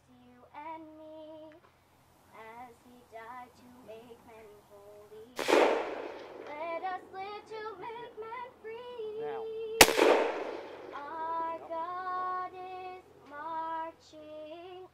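A solo voice singing a slow melody with vibrato, cut by two loud gunshots about five and a half and ten seconds in, each ringing out for a moment.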